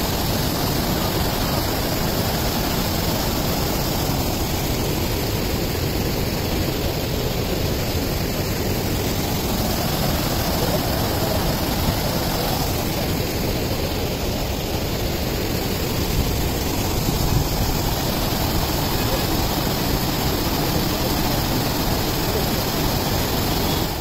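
Loud, steady rush of brown floodwater pouring across a flooded road and cascading over its edge.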